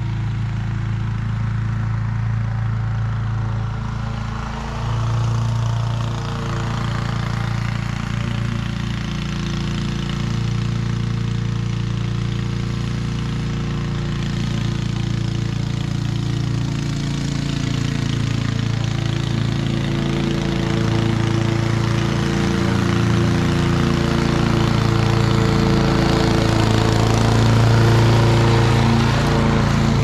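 Honda HRC216 commercial 21-inch walk-behind lawn mower running steadily while mowing, getting louder near the end as the mower comes close.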